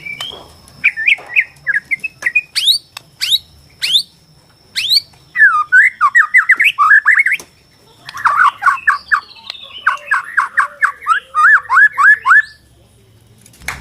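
White-rumped shama (Bornean murai batu) singing: fast runs of repeated whistled notes sweeping up and down, in three bursts with short pauses about 7.5 and 12.5 seconds in.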